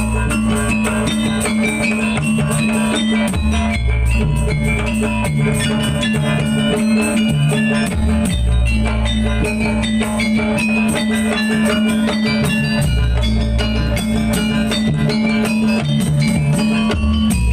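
Music with drums and a steady bass line under a fast run of short, bright melodic notes.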